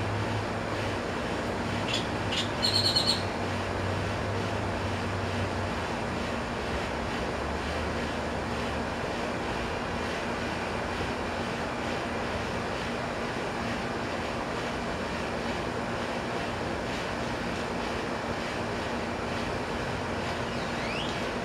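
Steady rushing outdoor background noise. A bird gives a short, rapid series of high chirps about two to three seconds in, and a brief rising whistle near the end.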